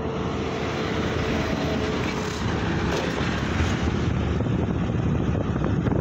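Wind rushing over the microphone with the running noise of the vehicle carrying it as it travels along the road, with a faint steady whine through the first few seconds.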